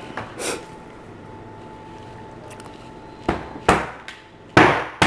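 A hammer pounding a giant boiled lobster claw to crack the shell: four sharp blows in the last two seconds, the later ones louder.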